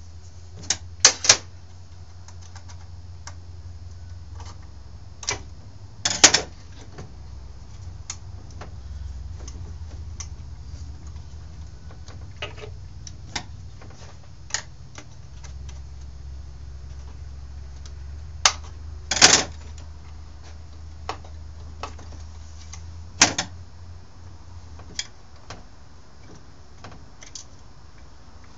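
Irregular sharp clicks and clacks of hand tools and small metal parts as the cover and its nuts are fitted back onto a Stihl S10 chainsaw, a few of them much louder than the rest, over a steady low hum.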